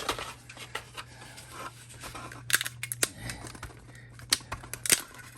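Glued plastic model parts being twisted and pried apart by hand, with scattered sharp clicks and cracks as the acetone-softened glue joint gives way, over a steady low hum.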